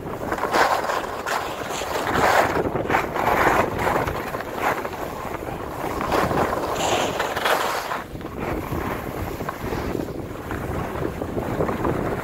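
Wind rushing over the microphone at downhill speed, mixed with the hiss and scrape of edges sliding and carving on packed, groomed snow. The scraping comes in uneven surges as the turns bite.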